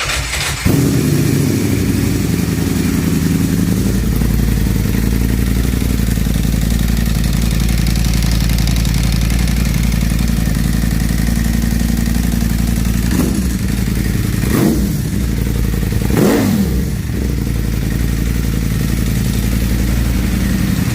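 Motorcycle with an Akrapovič full titanium exhaust starting up and idling steadily, with three quick throttle blips a little past halfway. It cuts off suddenly at the end as the engine is shut off.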